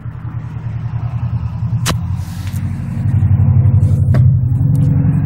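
A motor vehicle's engine rumbling steadily, growing louder about three seconds in. Two sharp knocks sound over it, one about two seconds in and one about four seconds in.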